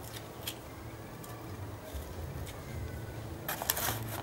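A knife cutting into the fibrous husk of a palmyra palm fruit, with a few scattered sharp clicks and a louder clatter of clicks about three and a half seconds in, over a low steady hum.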